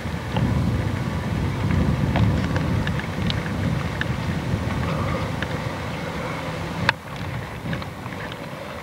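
Low, uneven rumble of wind buffeting the camcorder microphone, with scattered light clicks. A sharper click comes about seven seconds in, after which the rumble drops.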